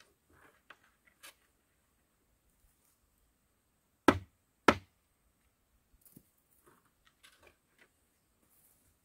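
Bamboo poles being handled: two sharp knocks about half a second apart, midway through, among faint clicks and rustles.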